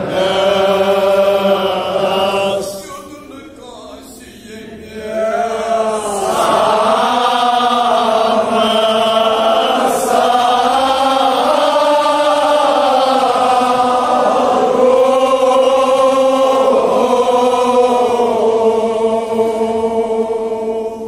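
Men's voices chanting a Kashmiri marsiya, a Shia elegy for the martyrs of Karbala, in long, held, unaccompanied melodic lines. The chant falls away briefly about three seconds in and resumes about two seconds later.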